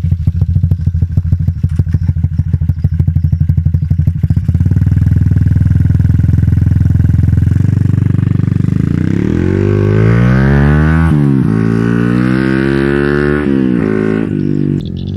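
Yamaha Y15ZR's 150 cc single-cylinder four-stroke engine through an Espada E6 aftermarket exhaust with its inner silencer left in, running loud. It idles with a fast, even pulsing note, then pulls away, the pitch climbing and dropping back at two gear changes near the end.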